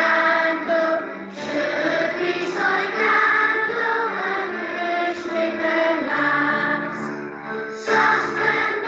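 A Welsh-language folk song sung by several voices over a backing track with a steady bass line.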